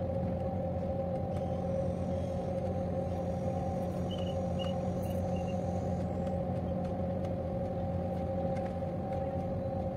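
Steady drone of a marine diesel engine running at a constant speed, with an unchanging hum and no rise or fall. A few faint short chirps come in around the middle.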